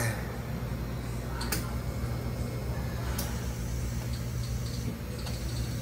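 Hydromassage bed's pump running with a steady low hum, with two faint clicks about a second and a half and three seconds in.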